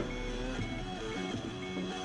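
Background music with changing notes and a short high tone repeating about twice a second.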